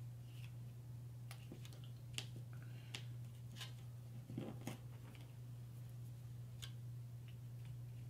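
Scattered light taps, clicks and soft rustles of torn paper being pressed down and worked with a glue brush, over a steady low hum.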